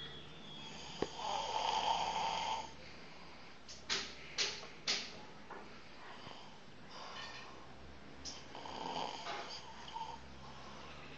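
A person snoring in sleep: one long snore about a second in and another near the end, with three sharp clicks in between, around four to five seconds in.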